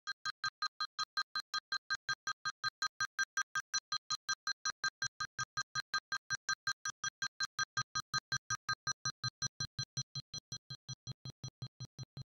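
Electronic telephone ringing: a rapid beeping ring of about four even pulses a second at the same few pitches, growing a little quieter near the end.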